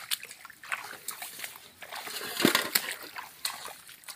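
Feet wading and splashing through shallow muddy water in irregular steps, with a louder splash about two and a half seconds in.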